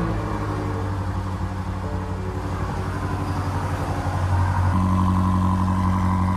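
BMW F90 M5 Competition's twin-turbo V8 idling steadily just after being started. The exhaust note grows louder and fuller about four and a half seconds in.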